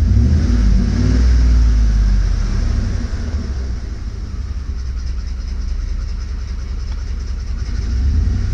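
Ford F-150's 5.4-litre 3V Triton V8 running hot with a loud noise from the top of the engine, which the owner takes for a timing chain problem, the chain loosening as it heats up. The engine revs up briefly at the start, runs steadily, then swells again near the end.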